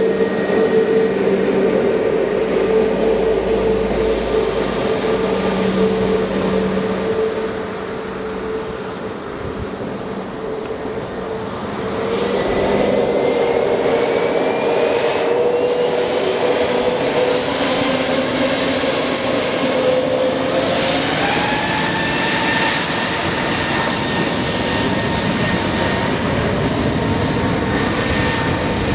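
Airbus A320 jet engines running with a steady whine, then spooling up a little under halfway through: the whine rises in pitch over several seconds and settles at a higher, steady pitch as the engines reach takeoff power.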